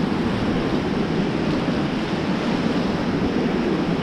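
Fast whitewater of the Beas River rushing around a raft in the rapids: a steady, loud wash of water, with wind buffeting the microphone.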